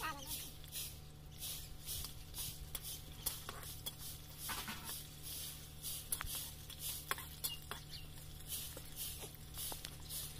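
Metal spatula stirring and scraping in a wok, short rasping scrapes repeating about two to three times a second, with scattered light clicks of metal against the pan.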